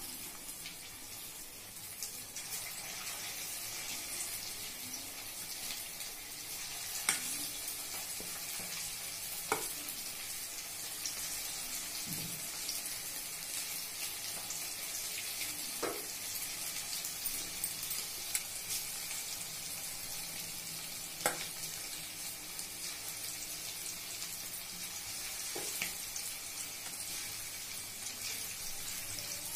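Batter-coated chicken pieces deep-frying in hot oil in a steel kadai: a steady sizzle, with several sharp clicks spaced a few seconds apart as more pieces are spooned in.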